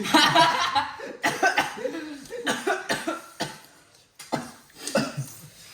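A person coughing repeatedly in short bursts, with some voice sounds between the coughs.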